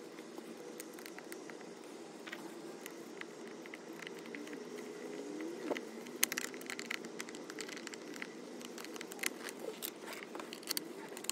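Faint scattered clicks and scrapes of a plastic air filter housing and its screws being fitted by hand, coming more often after about six seconds, over a steady low hum.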